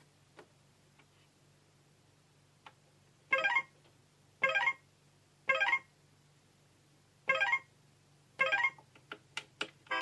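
VTech Petal Power toy laptop making short electronic sounds: five brief pitched blips about a second apart, with light plastic clicks before them and a quick run of clicks near the end.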